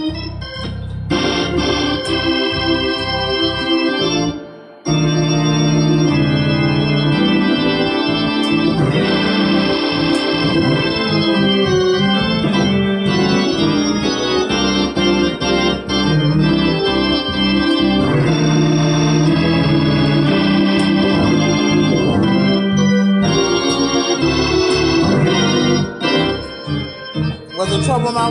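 Two-manual console organ played continuously in sustained full chords. The playing drops out briefly about four and a half seconds in and turns choppy near the end.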